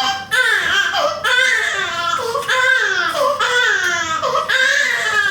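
Baby crying hard: a run of loud, high-pitched wails, each falling in pitch, about one a second.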